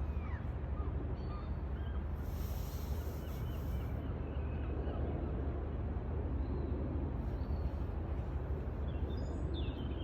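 Outdoor ambience: a steady low rumble, with a few short bird chirps near the start and again near the end.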